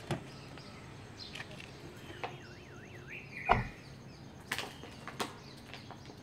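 Faint birdsong of short chirps and a wavering whistle, broken by a few sharp knocks; the loudest knock comes about three and a half seconds in.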